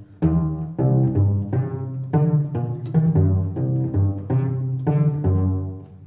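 Music on low string instruments, cello-like, playing short separate notes in a steady rhythm, about three notes every two seconds.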